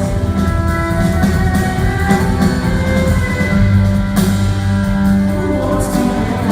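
Live band music in concert: held melodic notes over a steady low bass line, with scattered drum hits.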